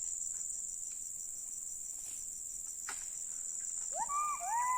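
Steady high-pitched insect drone. From about four seconds in, several overlapping rising, whooping calls start, the calls that locals put down to a long-armed monkey, a gibbon.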